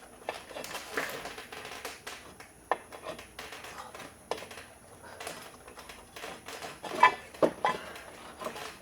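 Hand tools and metal car parts clinking and knocking as a front engine mount is worked loose by hand, in irregular taps with a few louder ringing clinks about seven seconds in.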